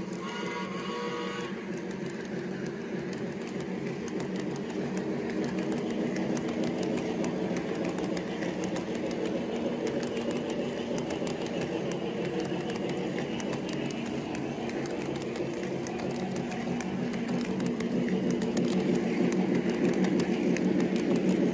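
Lionel O-gauge model train cars rolling past on three-rail track: a steady rumble with rapid fine clicking from the wheels, growing louder near the end. Some pitched tones stop about a second and a half in.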